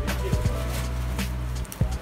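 Background music with a steady beat over a deep bass line; the bass drops out near the end.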